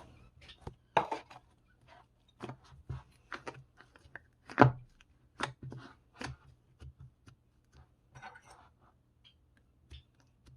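Slime being squeezed and played with by hand: irregular sticky clicks, pops and crackles, with one louder pop about halfway through.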